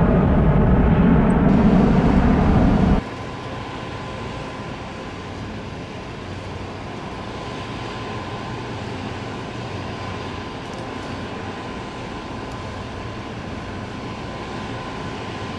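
Airbus A330 twin-jet (RCAF CC-330 Husky) engines, first loud as the jet climbs out after takeoff; this roar cuts off suddenly about three seconds in. After that comes the quieter, steady jet noise of the same aircraft type on landing approach, with a thin steady whine.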